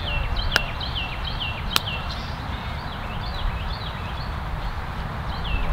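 Two sharp clacks of lacrosse sticks or ball on stick, about half a second apart from one second to the next, over a steady wind rumble on the microphone. Rapid high chirps that fall in pitch run alongside, thickest in the first two seconds.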